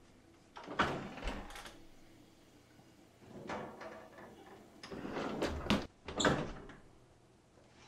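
Kitchen oven door pulled open with a clunk, a softer clatter at the metal rack as the toasted rolls are handled, then the door pushed shut with the loudest knocks near the end.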